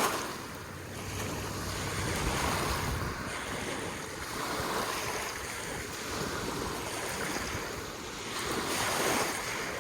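Waves on a lake shore lapping and washing in, rising and falling in swells every few seconds, with wind rumbling on the microphone.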